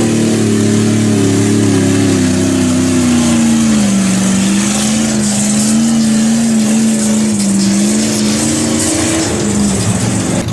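A vehicle engine running steadily, its pitch dipping slightly midway and then holding.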